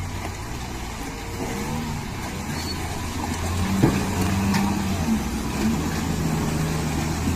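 Diesel engine of a loaded Tata tipper truck running under load as it drives through deep mud: a steady low drone whose pitch shifts slightly, with one sharp knock about four seconds in.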